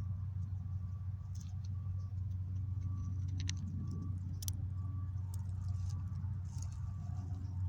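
Ground squirrel cracking and chewing shelled peanuts: scattered small crunches and clicks, the sharpest about three and a half and four and a half seconds in. Under them runs a steady low hum.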